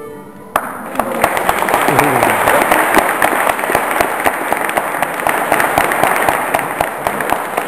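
The last notes of the music die away, then about half a second in an audience breaks into applause, a dense clapping full of sharp individual claps that keeps going steadily.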